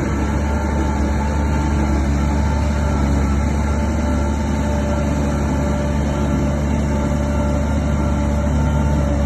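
Heavy diesel engine of earthmoving machinery running steadily at an even pitch, with a strong deep hum.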